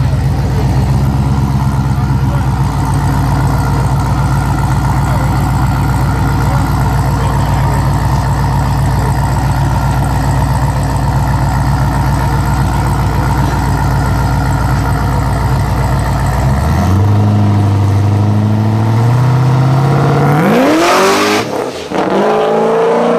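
Chevrolet Corvette's LS V8 idling with a steady low rumble at the drag strip start line, then launching about 17 seconds in, the revs climbing in rising sweeps as it shifts up through the gears and pulls away.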